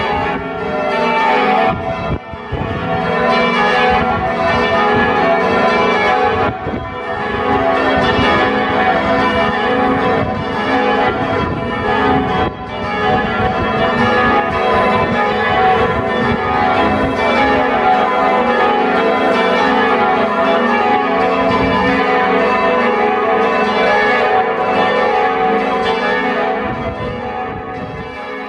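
Ring of five church bells cast by Taylor in 1854, tenor in E, rung by hand in the tower and heard from outside it, the strokes following one another without a break. The ringing gets quieter near the end.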